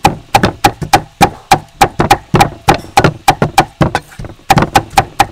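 Steel cleaver chopping red chillies on a thick wooden chopping block: quick, even strikes at about five a second. The strikes break off briefly a little before four seconds in while the blade scrapes the pile together, then start again.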